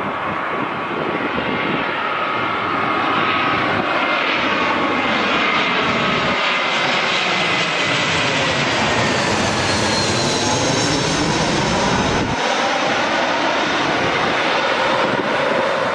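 Twin-engine narrow-body jet airliner on final approach, engines running as it passes low overhead, with whining tones that slide down in pitch as it goes by. The sound breaks sharply about twelve seconds in, where a second approaching airliner's engine noise takes over.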